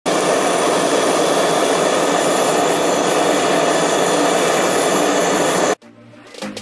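Handheld butane canister torch burning with a steady, loud hiss. The hiss cuts off suddenly near the end, and music begins.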